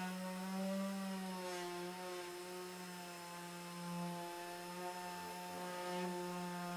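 Random orbital sander running steadily with its fine sanding disc on the gelcoat of a GRP composite panel: a steady motor hum that wavers slightly in pitch.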